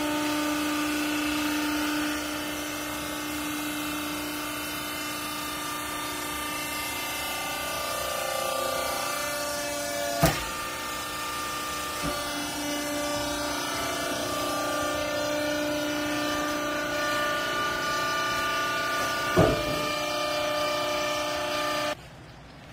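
Semi-automatic horizontal rag baler running: a steady machine hum of several tones that shift partway through, with two sharp knocks about ten and nineteen seconds in, cutting off suddenly near the end.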